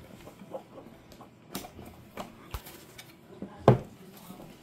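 Light metallic clicks and taps of an Allen key working the bolts of carbon fiber telescope tube rings as they are tightened, with one sharp louder knock about three and a half seconds in.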